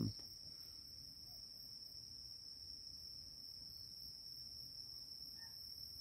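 Crickets trilling in a faint, steady, high-pitched chorus.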